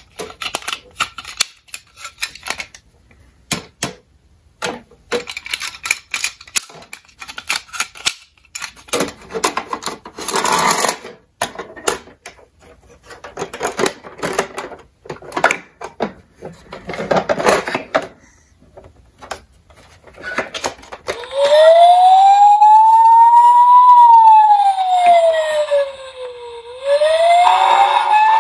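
Plastic clicks and rattles as a toy ambulance's rear doors and ramp are handled. After about twenty seconds the toy's electronic siren starts, a loud, slow wail that rises and falls about once every five seconds.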